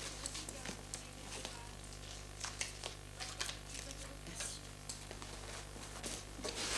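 Soft rustling and scattered light clicks of hands handling a small card and a bag, over a steady low hum.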